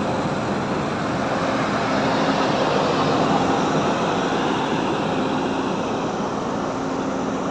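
Hyundai 210 excavator's diesel engine running steadily at a constant speed, an even mechanical noise with a low hum through it.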